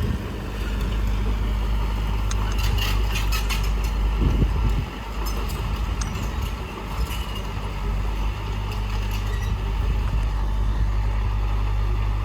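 Diesel engine of heavy earthmoving machinery running steadily, with bursts of metallic clanking and rattling between about two and seven seconds in.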